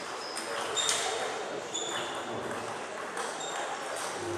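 Scattered sharp clicks of celluloid table tennis balls bouncing on tables and bats around a sports hall, each with a short ping, over a faint background murmur.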